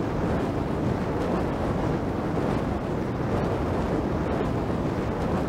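Steady low rushing noise of a large cavitation water tunnel running, with water flowing through its test section past a hydrofoil.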